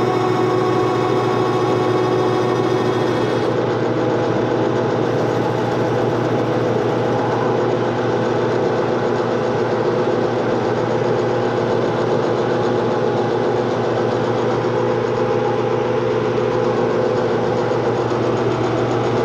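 Metal lathe running under power with a steady motor and gearbox hum as it turns a hardened steel axle against a carbide insert, taking about a twenty-thousandths cut off the old splines. A thin high whine drops out about three and a half seconds in.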